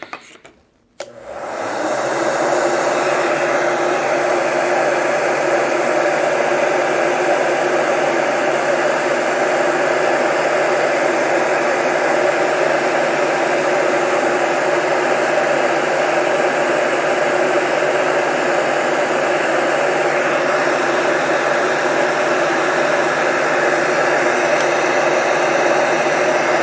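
Electric heat gun switched on about a second in, then running steadily: a constant rush of blown hot air over a fan-motor hum, used to shrink heat-shrink tubing over wires.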